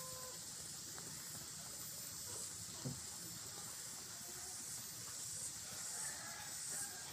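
Steady high-pitched hiss of outdoor background noise, with a single short knock about three seconds in.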